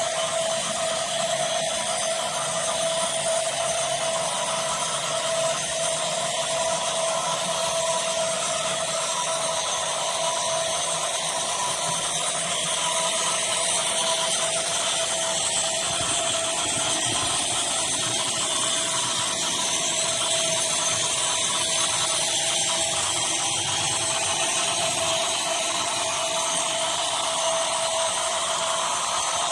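Steady buzzing hum from sound-equipped HO scale model GE Dash 9-44CW locomotives: the diesel engine sound of their ESU LokSound decoders, played through small onboard speakers.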